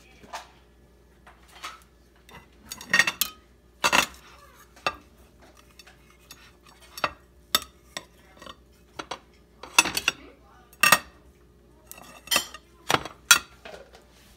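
A metal table knife clinking against a ceramic plate as slices of banana bread are cut and served: a dozen or so sharp, irregular clinks.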